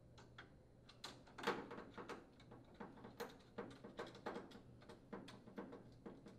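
Faint, irregular clicks and light knocks of hand work on an oven door: tools, screws and door parts being handled during the door handle replacement.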